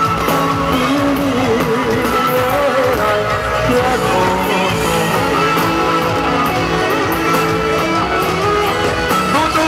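A male singer sings live into a handheld microphone over amplified backing music with guitar.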